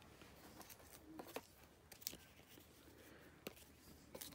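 Near silence with a few faint, scattered clicks and taps of cardboard baseball cards being handled and sorted by hand.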